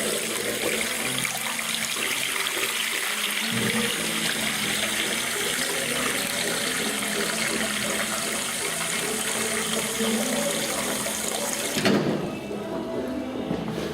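Toilet cistern refilling after a flush: water hissing steadily through the fill valve, then cutting off suddenly about twelve seconds in as the valve shuts.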